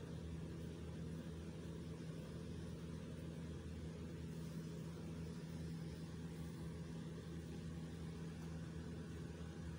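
A steady, unchanging low hum with a faint hiss over it. This is the background noise of the recording, and nothing else is heard.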